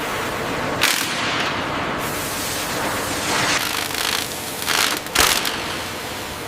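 Factory working noise: a steady hiss broken by a few sudden sharp cracks.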